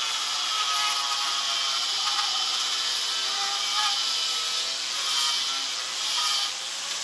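Angle grinder running at speed with a thick 3D-printed PLA cutoff disc pressed into a PLA plastic workpiece, a steady grinding whir. The plastic disc is rubbing and melting against the plastic rather than cutting cleanly.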